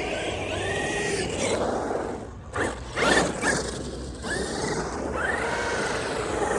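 Traxxas XRT RC monster truck's electric motor whining, its pitch rising and falling as the truck speeds up and slows, with a short drop-off and then a louder surge about three seconds in.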